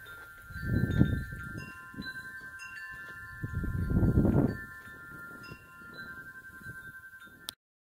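Wind chimes ringing in the breeze, several tones sounding and overlapping. Two louder gusts of wind buffet the microphone, about a second in and again around four seconds in. The sound cuts off abruptly near the end.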